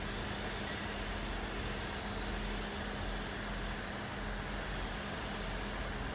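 A steady, unchanging engine hum with a constant low tone over a wash of outdoor background noise.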